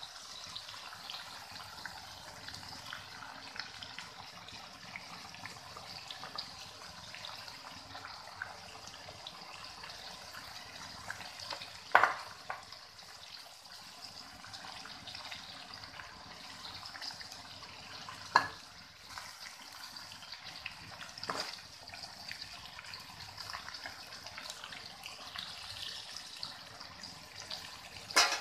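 Chicken and long beans sizzling steadily in a wok as they are stir-fried, with a few sharp clanks of the spatula against the metal, the loudest about twelve seconds in and another pair right at the end.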